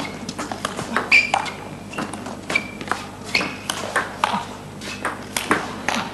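Table tennis rally: the celluloid ball clicking off the rackets and pinging on the table in a rapid run of sharp hits and bounces.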